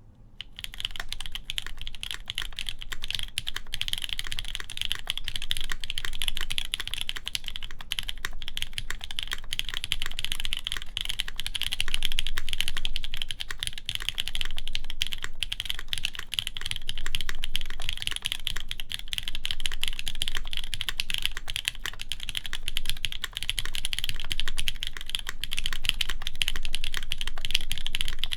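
Continuous steady typing on a custom mechanical keyboard: a Keycult No. 1 Rev. 2 with lubed JWicks linear switches, a polycarbonate plate and GMK keycaps, a quick stream of keystrokes. The typing begins about half a second in.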